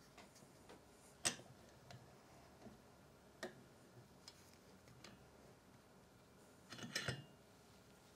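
A few faint clicks and taps as a 3D-printed TPU soft jaw with small magnets is handled and set onto the steel jaw of a bench vise: a sharper click about a second in, another a little past the middle, and a short cluster of taps near the end.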